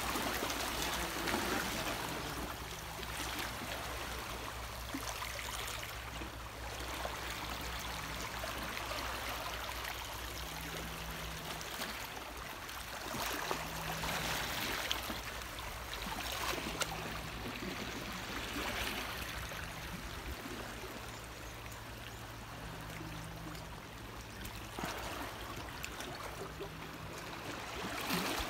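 Sea water lapping and trickling among granite boulders and rock pools, a steady wash that swells and eases every few seconds.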